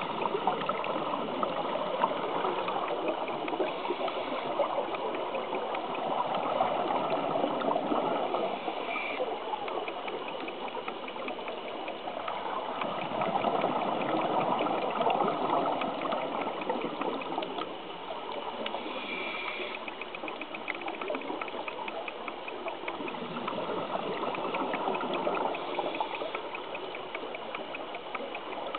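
Underwater bubbling and gurgling of scuba regulator exhaust bubbles, surging and fading every several seconds with the divers' breathing. A faint steady whine with fine regular ticking sits high above it.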